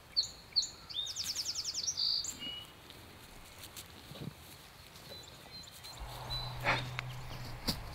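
A small songbird singing a short phrase of high, sliding notes that ends in a quick trill. Near the end come a low steady hum and a couple of sharp clicks.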